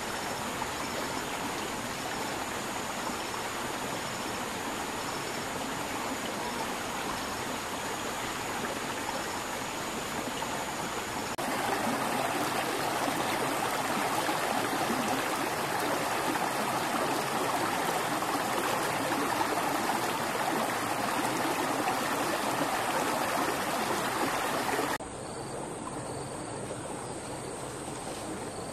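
Steady rush of flowing water, with a faint high insect chirping repeating at an even pace. The rush gets louder about a third of the way in and drops back near the end.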